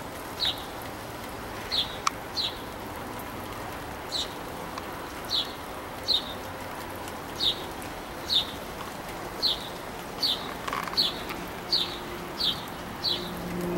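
A small songbird chirping over and over, about fourteen short, falling high chirps at uneven intervals of roughly a second, over the steady hiss of rain. Near the end a dove starts cooing low.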